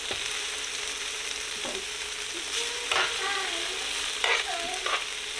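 Food sizzling in hot fat on an electric griddle at its highest setting: a steady frying hiss, with a few sharper clicks or pops about three and four and a half seconds in.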